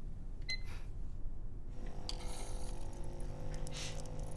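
A light clink of crockery, then a steady low hum with two short hisses.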